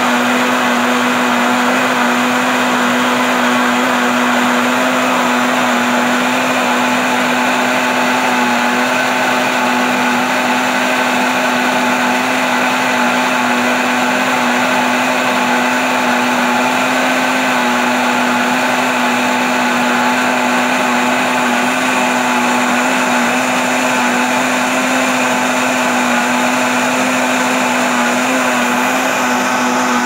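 Britânia B1000 1200 W six-blade countertop blender running steadily, puréeing kiwi in water. Its motor holds a constant pitch throughout.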